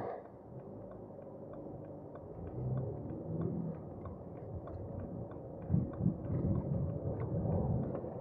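Interior sound of a 2006 BMW 318d's four-cylinder diesel on the move: a steady low engine and road rumble that grows louder about two-thirds of the way through. A faint, even ticking about three times a second runs over it.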